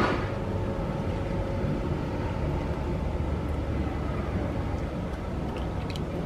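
Steady low background rumble, with a few faint clicks near the end.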